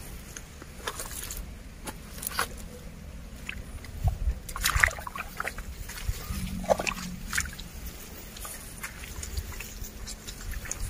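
Footsteps in wet mud along a shallow stream, with grass and reed stalks rustling and crackling against the walker, the loudest rustle about five seconds in. Faint sloshing of water comes in between.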